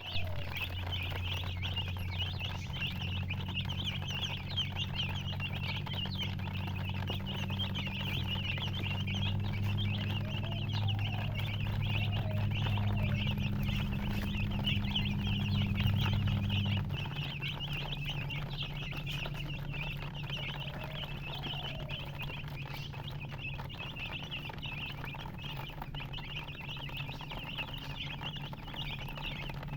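A brood of baby chicks peeping continuously, many short high chirps overlapping. A steady low hum runs underneath and drops lower and quieter a little over halfway through.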